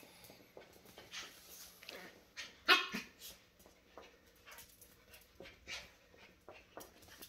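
Shetland sheepdog puppy playing: one short, sharp bark about three seconds in, among scattered clicks and scuffles of its paws on a hardwood floor.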